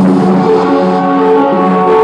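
Loud electronic music played live over a concert hall PA: a melodic passage of sustained keyboard-like notes moving in steps.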